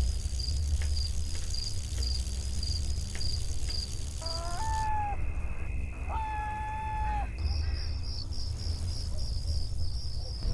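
Night ambience of crickets chirping in a steady pulse of about two to three chirps a second over a low rumble. The chirping pauses for a few seconds in the middle, where two short whistling tones sound, the first gliding up in pitch.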